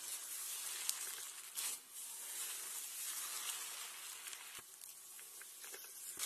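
Pink glitter slime being pressed and kneaded by hand: a soft hiss of fine crackles with a few small clicks.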